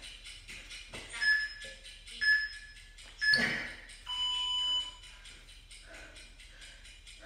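Workout interval timer beeping: three short beeps a second apart, then one longer, lower beep that marks the end of the exercise interval. Soft thuds from the exerciser's feet on the floor come between the beeps.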